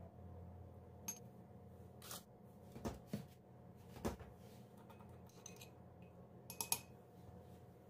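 Metal spoon clinking and tapping against a small ceramic bowl while sauce is spooned in and stirred: a handful of light, separate clicks spread across a few seconds, over a low steady hum.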